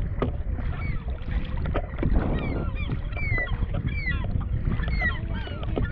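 Waterbirds calling over and over, short high calls that rise and fall, starting about a second in, over a steady low rumble of wind on the microphone.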